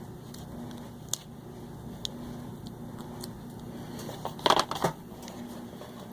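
Bakelite cord connector halves being handled and pressed together: a few sharp plastic clicks, then a loud cluster of clicks and rattles about four and a half seconds in as the cap is worked into place.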